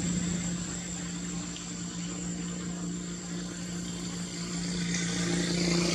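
A steady low hum with an even hiss over it, getting somewhat louder about five seconds in.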